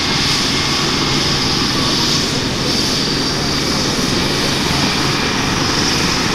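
Airbus EC135 helicopter on the ground with its twin Pratt & Whitney Canada PW206B turboshaft engines running and the main rotor turning: a steady high turbine whine over the rotor's continuous rumble.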